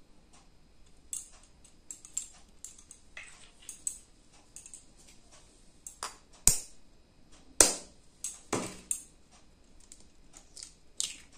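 A hen's egg tapped with a steel spoon to crack it: three sharp taps about a second apart midway, among small clicks and crackles of eggshell being handled and broken open over a steel bowl.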